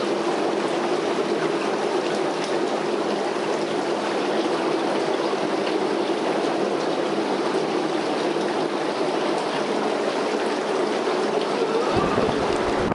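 Whirlpool jets of a jetted bathtub running, a steady rush of churning, bubbling water. About a second before the end it cuts to a low rumble of wind on the microphone.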